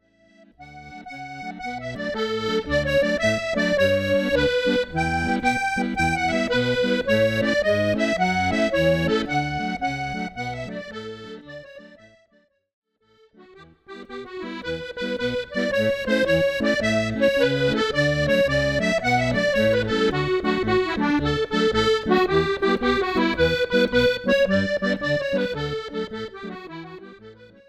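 Accordion playing a 6/8 jig melody with bass accompaniment underneath. The music fades in and out twice, with a short silence about halfway.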